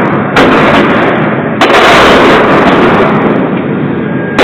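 Two pistol shots, about a second apart, each followed by a long rumbling echo, with a third shot near the end; plausibly the Beretta 92FS 9mm firing again after its malfunction was cleared.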